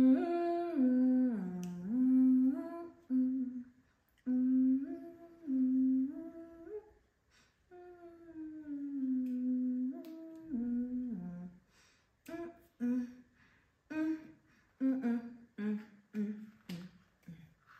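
A person humming a tune: long held notes that step up and down, broken by short pauses, becoming shorter and choppier near the end.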